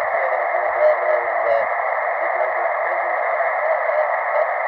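RS-918 HF SDR transceiver receiving 40-metre lower sideband through its speaker with DSP noise reduction off: a steady hiss of band noise held inside the narrow voice passband. A faint, wavering voice-like sound lies under the noise in the first three seconds.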